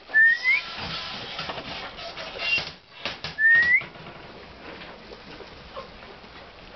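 A person whistles two short rising notes, about three seconds apart, with soft scratchy rustling between.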